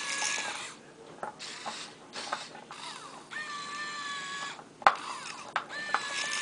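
Kyosho Komatsu remote-control model excavator's small electric motors and gearboxes whining in four stop-start bursts as the boom and bucket move, with a few light clicks and one sharp click about five seconds in.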